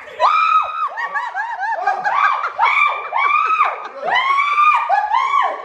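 Several people screaming and shrieking in fright at a prank cockroach, in overlapping high-pitched cries that rise and fall, mixed with laughter.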